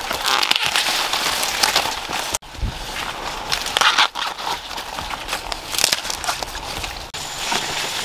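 Maize leaves rustling and crackling as ears of corn are pulled and snapped off the stalks by hand, with many short snaps and crunches.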